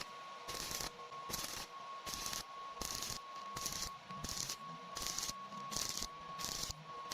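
Short hissing bursts of a welding arc, struck in even pulses about one every three quarters of a second, over a faint steady whine.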